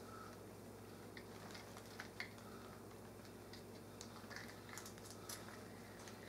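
Faint, scattered small plastic clicks and handling noises from a power plug and cord being turned over in the hands and fitted together, over a faint steady low hum.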